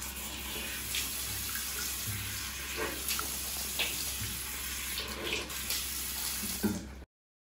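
Tap water running into a bathroom washbasin while a boy rinses his mouth from cupped hands, the mouth-rinsing step of wudu, with a few short splashes. The sound cuts off abruptly near the end.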